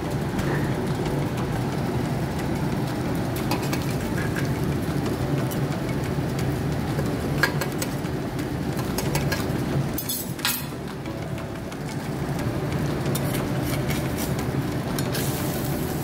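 Egg frying in a metal ring on a stainless flat-top griddle over a steady mechanical hum, with a few sharp metal clicks and scrapes of a spatula against the griddle and ring. The clicks cluster about ten seconds in.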